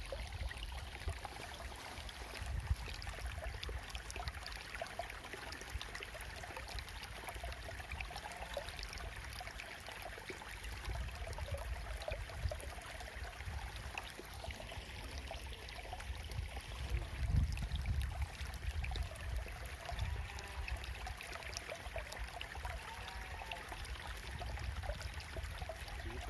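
Water flowing steadily in a small ditch, trickling, with a few low rumbles in the middle.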